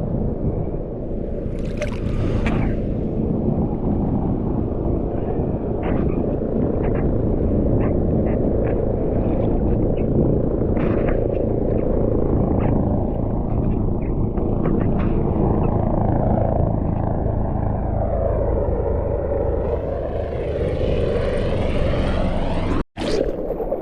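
Muffled, steady rumble of surf and water churning around a GoPro camera in the waves, with wind buffeting the microphone and small scattered splashes. The sound cuts out for an instant near the end.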